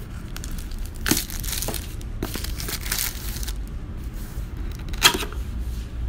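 Plastic wrapping crinkling and tearing and cardboard box flaps being pulled open, in several rustling bursts with one sharp, loud crackle about five seconds in.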